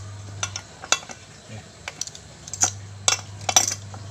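Screwdriver tip clicking and scraping against the steel shell and hub of an Isuzu Panther brake booster as it is pried apart: a string of sharp, irregular metallic clinks, a cluster of them near the end.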